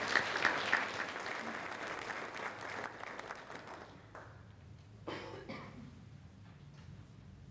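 Audience applauding a speaker's introduction, starting strong and dying away about four seconds in.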